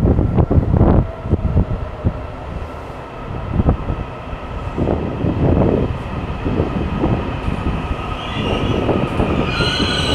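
Taiwan Railway EMU800-series electric commuter train pulling in alongside the platform, its wheels rumbling and knocking over the rail joints. A high squealing whine builds near the end as it slows.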